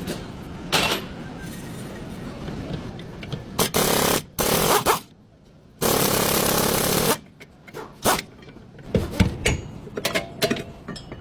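Workshop tool noise on a car's rear brakes: three loud bursts about half a second to a second long, the last and longest near the middle, then scattered metal clicks and knocks.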